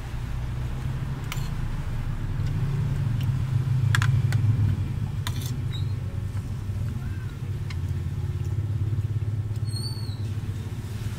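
A steady low rumble with several sharp clicks of a metal spoon against a ceramic plate while eating, the strongest about four seconds in; a couple of short high chirps near the end.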